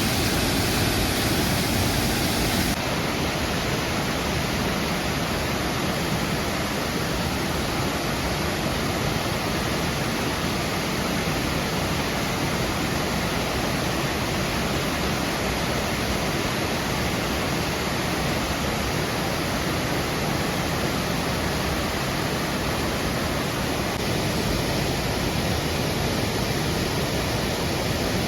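Waterfall, a steady, loud rushing of falling water with no break; the upper hiss shifts slightly about three seconds in.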